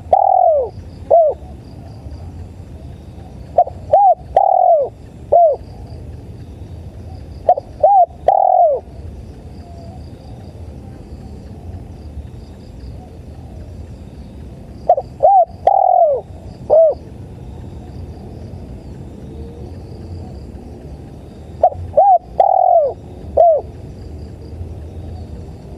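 Spotted dove cooing: five phrases of three or four notes each, with a longer gap in the middle. Crickets chirp faintly and steadily behind it.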